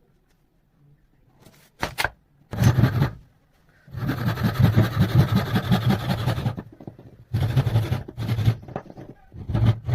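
Hand-held electric cutter machine switched on and off repeatedly, its motor running in bursts: two short blips, then a longer run of a couple of seconds, another run, and starting up again near the end.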